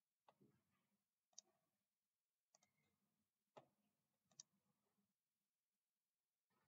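Faint computer mouse clicks, five or so about a second apart, two of them quick double clicks, against near silence.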